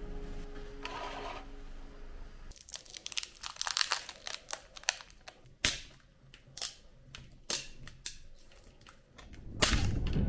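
Fingertips tapping and rubbing on a hardened, rippled epoxy resin surface: irregular clicks and scratchy crackles over several seconds. A fading music tone rings at the start, and music comes in loudly near the end.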